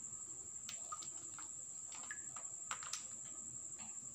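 Thick liquid surfactant pouring in a thin stream into a basin of water, giving faint scattered splashes and ticks. A steady high-pitched insect trill, like a cricket's, runs underneath.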